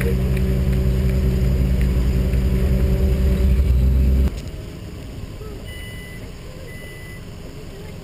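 Vehicle engine idling with a loud, steady low rumble, cutting off abruptly about four seconds in. After that there is quieter parking-lot background with two faint short beeps.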